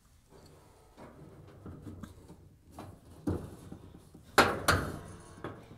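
Rustling and metal clunks as a washer motor on its mount carriage is handled and seated in the sheet-metal washer base, with one knock a little past three seconds and two louder knocks a moment apart about a second later.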